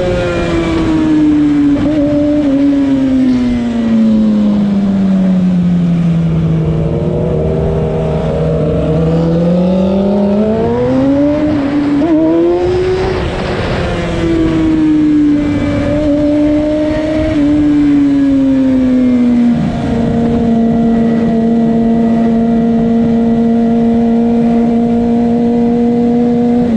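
Sportbike engine heard from the rider's seat, with wind rushing over the microphone. The engine note falls as the bike slows, holds low, climbs again as it accelerates about halfway through, eases off, then settles into a steady cruise for the last several seconds.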